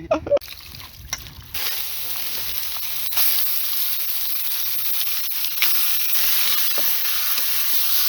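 Meat sizzling as it fries in a pan, a steady hiss that starts about a second and a half in, with a few faint clicks.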